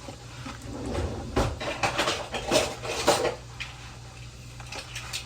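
Kitchen clatter: pots, pans and utensils knocking and clinking, mostly in a run of sharp clinks between about one and three seconds in, then quieter.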